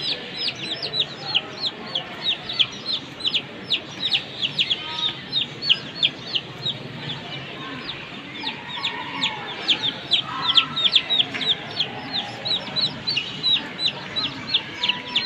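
Month-old chicks peeping rapidly and continuously: short high calls, each sliding down in pitch, several a second. A few lower calls come in around the middle.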